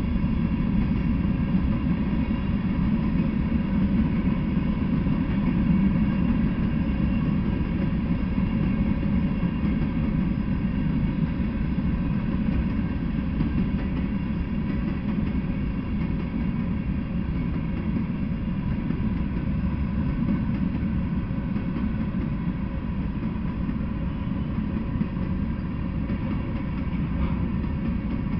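Freight train of covered hopper cars rolling past, a steady low rumble of wheels on the rails.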